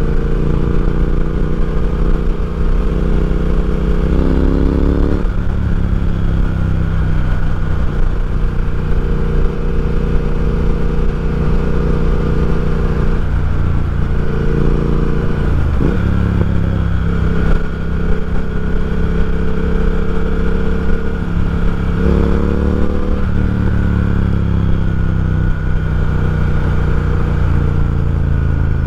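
Exhaust of a Triumph Speed Twin's 1200 cc parallel-twin engine, breathing through a Nuke slip-on and a DNA air filter, running steadily under way. The pitch climbs under acceleration and drops at upshifts about 5 and 23 seconds in, with another quick swing in revs near the middle.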